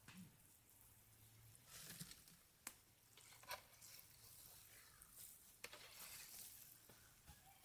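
Near silence: faint background hiss with a few soft, scattered clicks.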